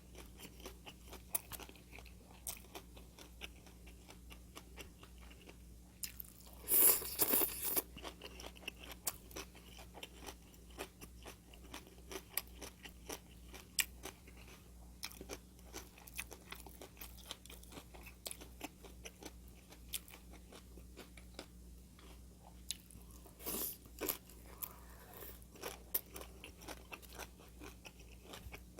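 Close-miked chewing with a steady run of small wet clicks, and two louder crisp crunches, about seven seconds in and again near the end, as crunchy food is bitten and chewed.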